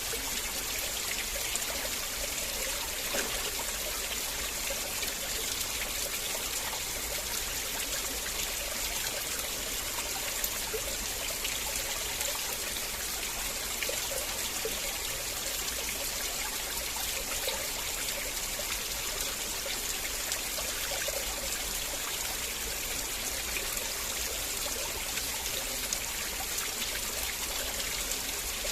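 River water flowing and trickling steadily over stones.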